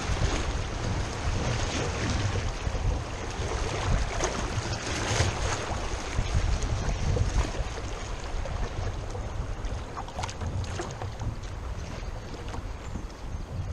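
River water rushing and lapping around a moving kayak, with wind buffeting the microphone in a low rumble. A few short splashes or knocks come about four to five seconds in and again near ten seconds.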